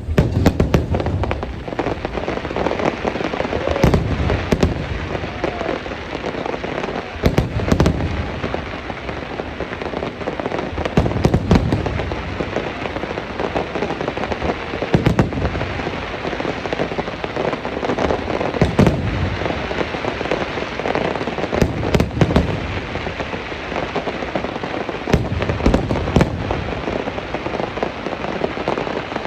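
Aerial fireworks display: a deep shell burst about every three to four seconds, with continuous crackling and hiss from the bursting effects in between.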